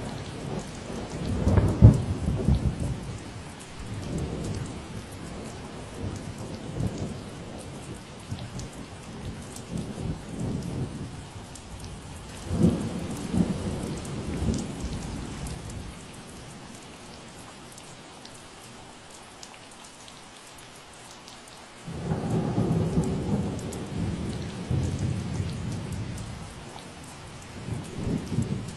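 Steady rain hissing, with rolls of thunder rumbling low several times over it. The loudest roll comes about two seconds in, another near the middle, and one starts suddenly about three-quarters of the way through.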